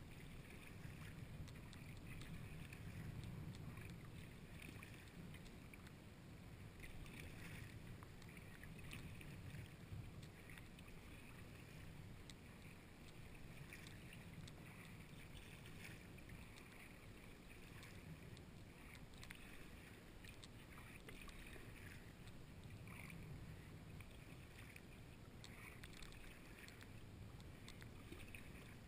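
Sea kayak being paddled: faint, repeated swishes and splashes of the paddle blades in the water every second or two, with water washing along the hull.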